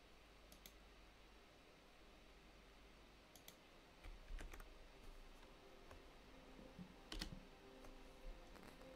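Faint, scattered clicks of a computer keyboard and mouse, a handful in all, with the sharpest about four seconds in and again about seven seconds in.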